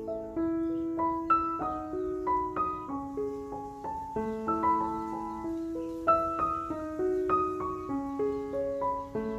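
Background piano music: a melody of single notes over held chords, several notes a second.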